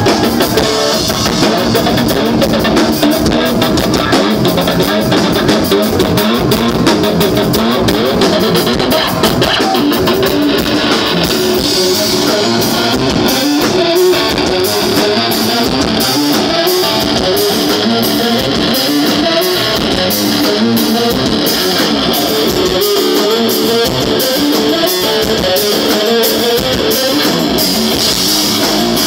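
Live blues-rock played loud by a guitar-and-drums duo: strummed electric guitar over a drum kit, with a regular cymbal beat coming in about ten seconds in.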